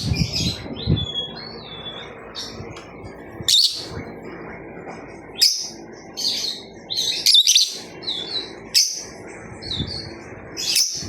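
A bird calling in short, high chirps and squawks with a few brief whistles that slide in pitch, coming irregularly every second or two.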